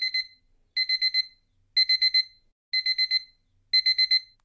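Digital alarm beeping as a wake-up alarm: quick groups of four high beeps, a group about once a second. A short sharp noise cuts in right at the end.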